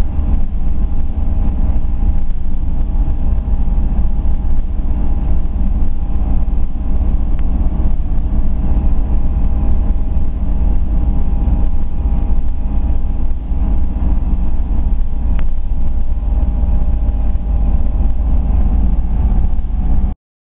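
Steady road and engine noise of a moving vehicle heard from inside: a strong, constant low rumble with a few faint steady tones over it. It cuts off abruptly near the end.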